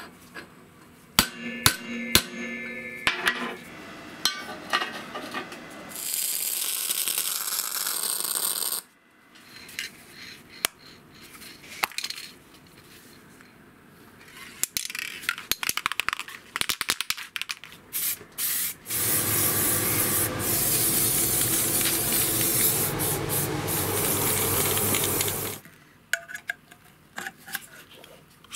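Clicks and scraping from handwork, then two bursts of steady hissing spray: a short one of about three seconds and a longer one of about six seconds in the second half.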